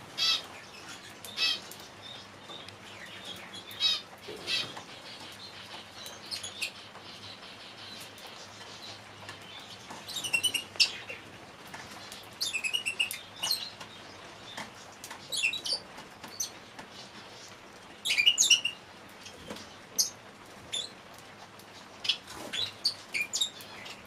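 Canaries chirping: scattered short, high chirps and several brief, rapid trills, the loudest about ten, thirteen and eighteen seconds in.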